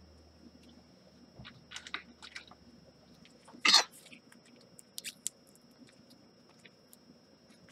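Scattered quiet clicks and rustles of handling, with one louder crunchy scrape a little past three and a half seconds in, over a faint steady high whine.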